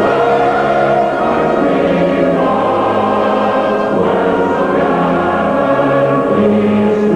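Music: a choir singing slow, held chords over instrumental accompaniment, which is the national anthem the station signs off with.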